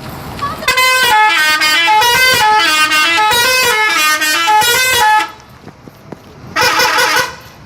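Telolet musical horn of a Bejeu Super High Deck bus playing a quick tune of stepped notes for about four and a half seconds, then one short blast near the end.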